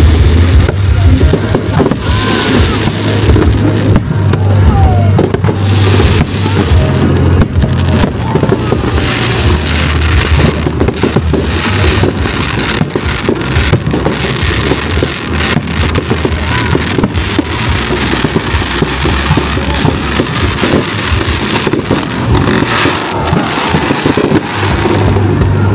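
Fireworks bursting and crackling in quick succession over loud music with sustained deep bass notes.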